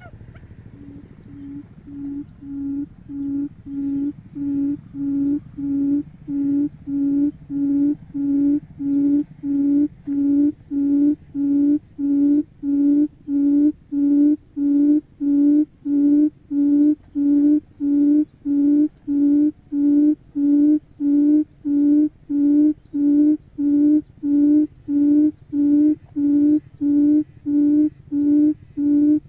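Buttonquail giving its booming hoot call: a long, even run of low hoots, about one and a half a second, growing louder over the first few seconds and then holding steady.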